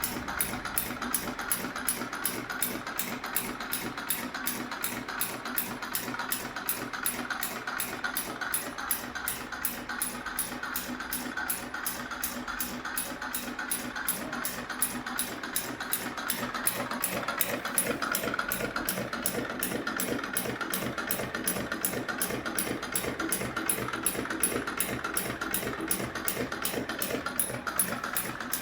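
CowBoy 7360 cylinder-arm shoe-repair sewing machine running at a steady speed, its needle mechanism ticking in a rapid, even stitching rhythm.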